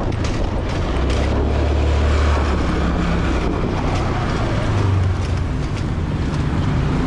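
Motorbike engine running under way, with wind rushing over the microphone and street traffic around it.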